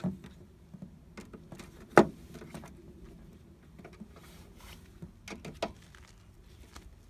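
Scattered clicks and knocks of a hand tool working a bolt on a metal light-bar bracket as it is tightened down, with one sharp knock about two seconds in.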